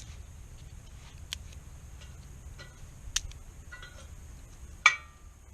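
Sticks of wood being put into a BioLite wood-burning camp stove: four sharp knocks a second or two apart. The last and loudest leaves a short metallic ring.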